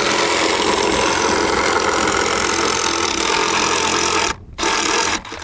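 Oscillating multi-tool buzzing as its blade plunge-cuts a hole through a thin wooden box panel. The cut stops briefly about four seconds in, runs again for about half a second, then stops near the end.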